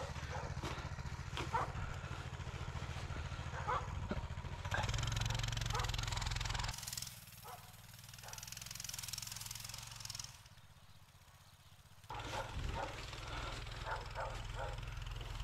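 Small pit bike engine idling steadily, with a plastic snow shovel scraping and pushing through packed snow and giving scattered knocks. The engine hum drops away for several seconds midway, then returns.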